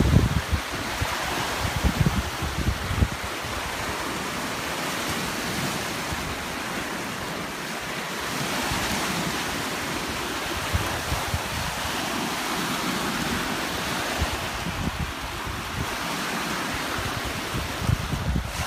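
Choppy lake water washing and lapping steadily, with wind buffeting the microphone in rumbling gusts at the start, a couple of seconds in and near the end.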